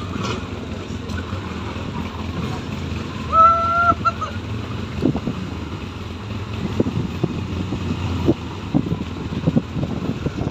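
Can-Am Outlander ATV engine running at low speed, a steady low rumble. A horn beeps once, briefly, about three seconds in, and scattered ticks and crackles follow through the second half.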